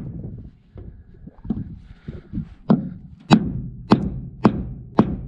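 A run of sharp knocks on a hard surface: a few softer, irregular ones at first, then five loud, evenly spaced blows about every 0.6 seconds.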